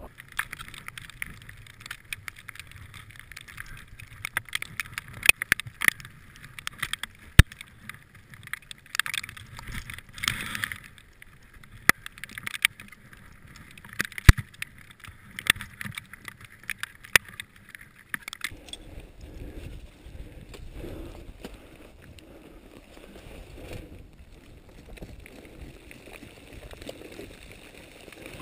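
Ice axe picks striking into hard snow and ice, sharp irregular hits a second or two apart with crunching and scraping between them. About eighteen seconds in the strikes stop abruptly and a steadier, lower rustling takes over.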